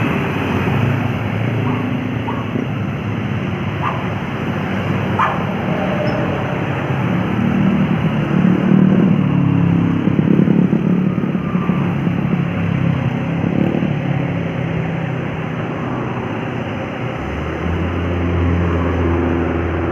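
Road traffic passing: car and motorcycle engines running in a continuous rumble that swells around the middle, with a deeper steady engine drone coming in near the end.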